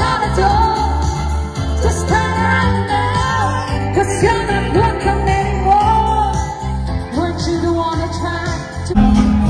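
Music with a singing voice over a steady bass.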